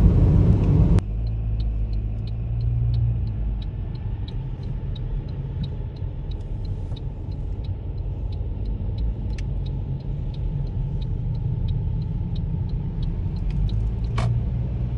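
Car's road and engine rumble heard inside the cabin while driving, steady and low, with a faint, even ticking about three or four times a second over it. A single sharp click comes near the end.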